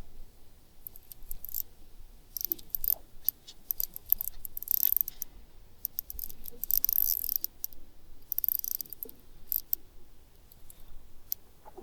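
Irregular bursts of sharp, high clicking and rattling while a hooked pickerel is brought in and landed.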